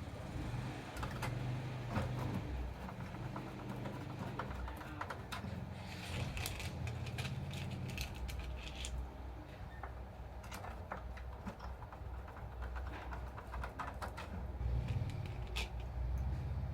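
Scattered light clicks and taps of small parts and tools being handled, over a steady low hum.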